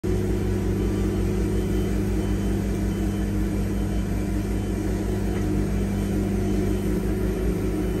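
Wood-Mizer LT70 sawmill's engine running steadily at an even speed, a constant low drone with a pulsing rumble underneath.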